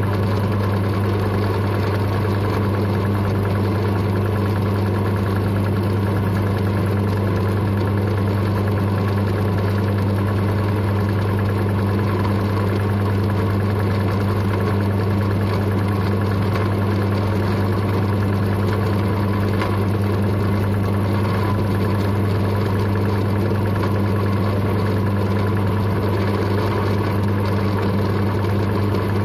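Drill press running with a steady low hum as a 4 mm twist drill bores a deep hole into St3 mild steel.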